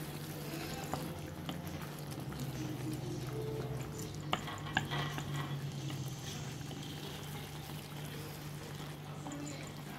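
A wooden spatula stirring chicken curry in a pan, the wet sauce simmering and sizzling. Two sharp knocks of the spatula on the pan come about four and a half seconds in, over a steady low hum.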